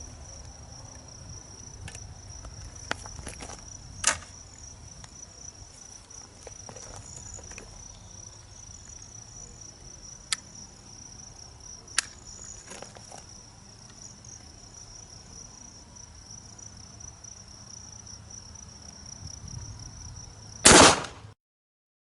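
Insects chirping steadily, with a few small handling clicks, then a single loud shot from a Savage Model 42's shotgun barrel near the end, the sound cutting off right after it.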